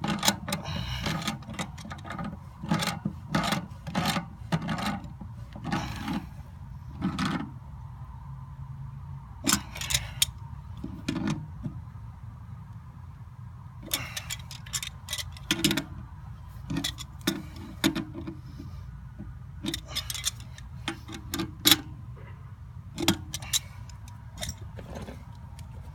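Irregular metallic clicks, taps and clinks, several in quick runs and others spaced out, over a steady low hum: metal parts of a backflow valve and its fittings being handled and worked on.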